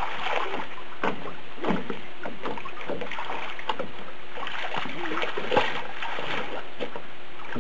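A child swimming, arms and legs splashing the water in an irregular run of splashes.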